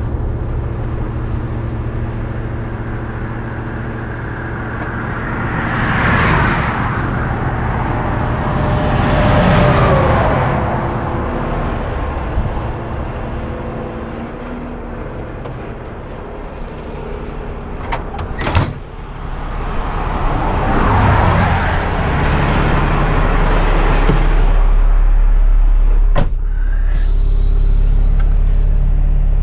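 Truck engine idling steadily while highway traffic passes, three vehicles swelling up and fading away, one with a falling pitch as it goes by. Near the end the sound changes to the steadier, louder low rumble of the truck's cab on the move.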